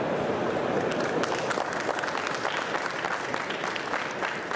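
Audience applauding, a dense patter of hand claps that grows crisper after about a second.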